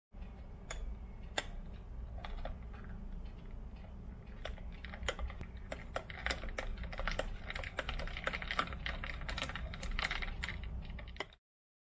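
Irregular light clicks and taps over a low steady hum, sparse at first and coming thick and fast from about halfway through, then stopping abruptly near the end.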